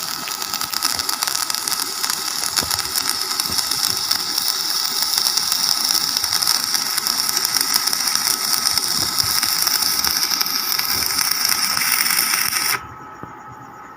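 Stick-welding arc from a No. 10 electrode at about 150–160 A, crackling and sizzling steadily as a bead is laid, then cut off abruptly about a second before the end as the arc is broken.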